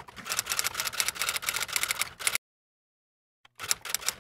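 Typewriter sound effect: a fast run of keystroke clicks, roughly ten a second, that cuts off abruptly a little over two seconds in and starts again about a second later.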